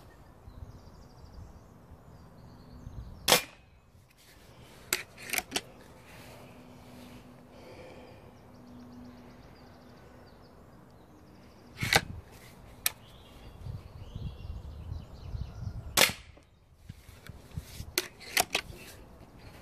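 A Mercury Chili Edge air rifle (.177 calibre, firing diabolo pellets) fired three times, about nine and then four seconds apart, each shot a sharp single report. Fainter clicks fall between and after the shots.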